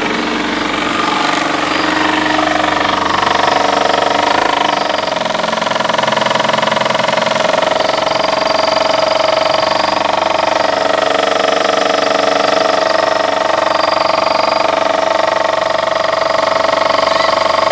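Fiat Uno engine running with a strange noise: a loud, steady whine over the engine that rises slightly in pitch a couple of seconds in, then holds.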